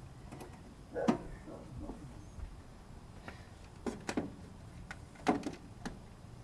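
Datsun L20B four-cylinder engine idling low and steady, with several sharp knocks and clatters over it, the loudest about a second in and a cluster between four and six seconds.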